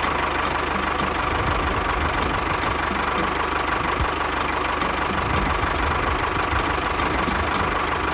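A small motor running steadily, with a fast, even low pulsing under a constant higher hum.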